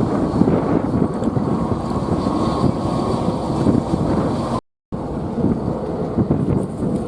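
Wind buffeting the microphone: a steady rumbling noise, broken by a brief total dropout about four and a half seconds in.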